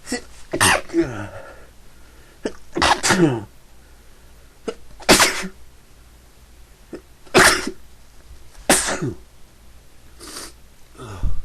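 A person sneezing over and over in a fit they can't stop, about six loud sneezes a second or two apart, several ending in a falling voiced tail.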